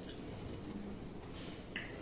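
Soft, wet eating sounds: chewing and lip smacking, and fingers squishing pieces of chicken curry, with a few short smacks and clicks in the second half.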